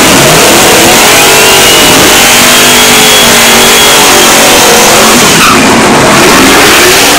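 Oldsmobile Cutlass 442 drag car doing a burnout. The engine revs hard while the rear tires spin and squeal, with a high squeal rising and falling through the middle.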